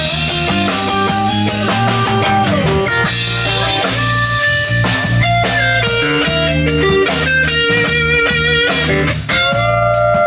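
Live rock band playing an instrumental passage with no vocals: an electric guitar carries a melody of held notes with occasional slides, over bass guitar and a steadily played drum kit.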